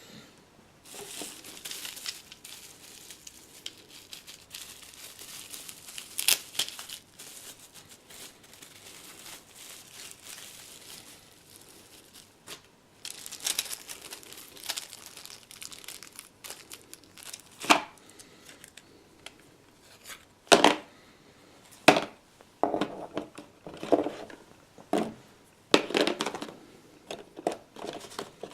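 Packaging crinkling and tearing as it is unwrapped by hand. Later come a series of sharp clicks and knocks from the box and its contents being handled.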